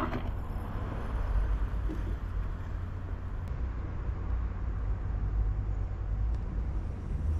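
Liquid-fuel camp stove being primed: the priming flame burns with a low, steady rumble that carries on as the flame dies down. One faint click about three and a half seconds in.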